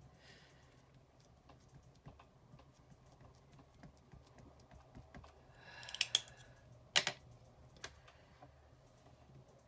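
Light, quick tapping of a small ink pad dabbed onto a stamp, with a few sharper plastic clacks about six and seven seconds in as pieces are set down on the mat.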